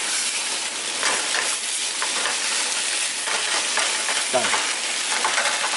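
Rice sizzling as it fries in a small pan, stirred and scraped with a Japanese cypress wooden spatula: a steady hiss broken by repeated scraping strokes, with a short falling squeak about four and a half seconds in.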